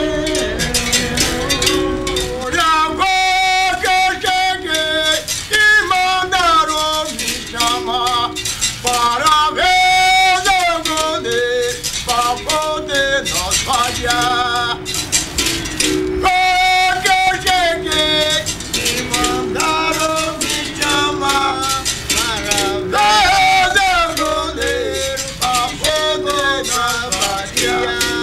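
Capoeira music: berimbaus, the musical bows, struck in a steady rhythm with caxixi rattles shaking, under a man singing a capoeira song.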